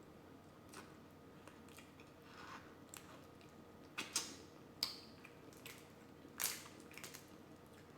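Close-miked mukbang eating sounds from a seafood boil of crawfish, shrimp and mussels in butter sauce: scattered sharp clicks, crackles and wet smacks of shells being handled and food being chewed, the loudest cluster about four to five seconds in.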